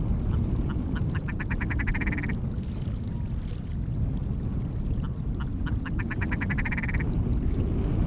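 Ptarmigan calling twice, each call a rapid run of croaking notes that speeds up and rises in pitch over about a second, over a steady wind rumble on the microphone.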